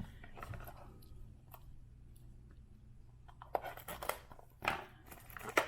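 Baseball trading cards being handled and shuffled by hand: faint rustles and clicks, then a run of crisp crackling scrapes over the last two seconds.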